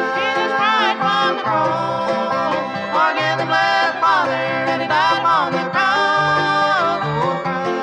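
Bluegrass band playing an instrumental passage: a fiddle carries the melody with sliding, swooping notes over banjo, guitar and upright bass.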